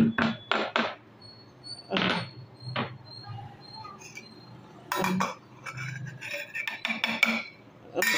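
Pestle knocking and grinding in a stone mortar, crushing black pepper: a quick run of strikes, about five a second, in the first second, then scattered knocks and clinks.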